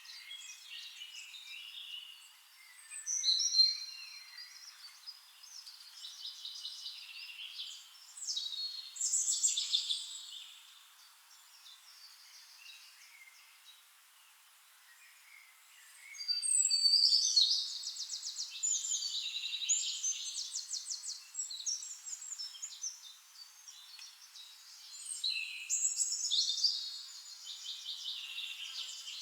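Forest songbirds singing: bright, high-pitched song phrases and quick trills, coming in bursts with short pauses and a brief lull about halfway through.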